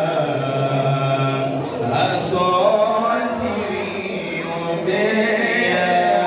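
Male voices chanting a melody into a microphone, with long held notes.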